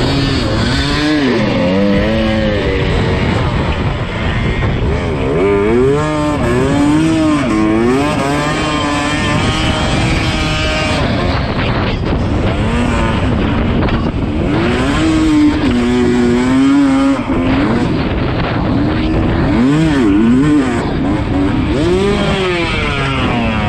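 Yamaha YZ250 two-stroke dirt bike engine revving up and down again and again as the throttle is worked, its pitch rising and falling every second or two, with a few briefly steadier stretches.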